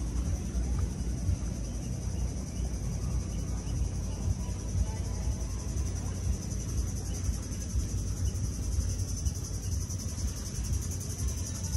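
Steady, high-pitched drone of insects, over a constant low, uneven rumble.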